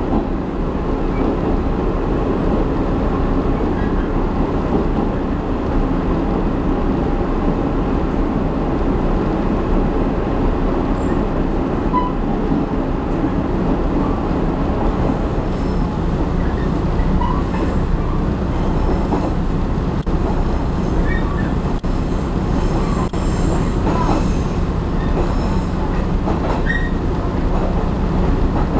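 Heard from inside the carriage of a diesel railcar running along the line: a steady rumble of wheels on the rails with a low engine drone underneath, and a few brief high wheel squeaks scattered through.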